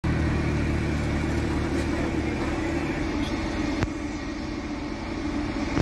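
Engine of a wheeled armoured vehicle driving past, its low drone strongest in the first two seconds or so and then fading as it moves off, over a steady engine hum. A single sharp click near the middle.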